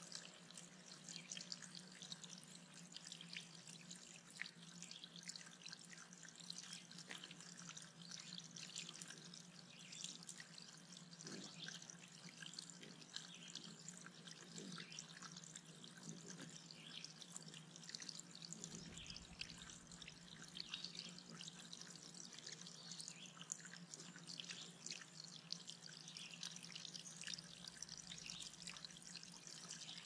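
Small pond waterfall trickling and splattering over a rock: a faint, steady patter of water with many small drips.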